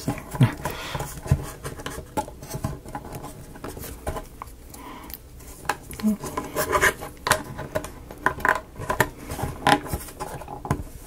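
Irregular light clicks, taps and scraping of small wooden model pieces being handled and pushed into a tight fit, with the clicks coming thicker and sharper in the second half.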